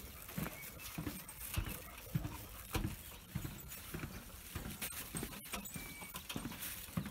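Footsteps on a wooden boardwalk: steady walking-pace thuds on the planks, about two a second.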